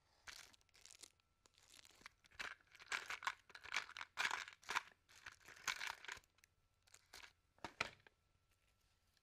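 A plastic bag crinkling in irregular bursts as it is handled and opened, loudest in the middle, with a last sharp crackle near the end.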